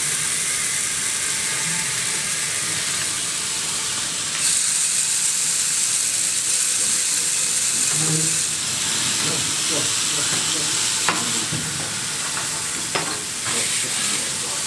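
VEX motor-driven conveyor belts of plastic tank-tread links running, a steady hissing rattle that grows louder from about four seconds in to about eight and a half seconds. A few sharp clicks come in the last few seconds.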